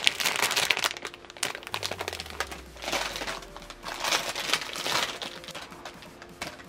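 Plastic packaging bag crinkling in several bursts as a squishy toy is handled and pulled out of it, with soft background music underneath.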